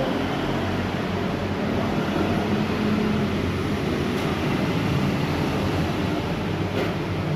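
A steady engine hum, running evenly with no change in pitch.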